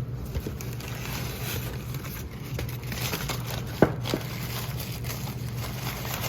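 Newspaper packing rustling and crinkling as parts are handled out of a box, with a few light clicks and one sharp knock a little over halfway through, over a steady low hum.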